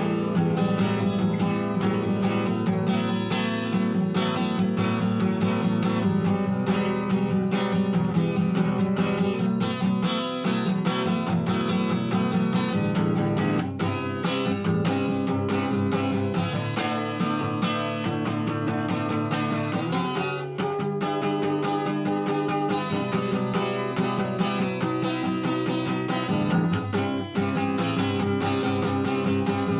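Instrumental guitar music: a continuous run of plucked notes and chords at an even level.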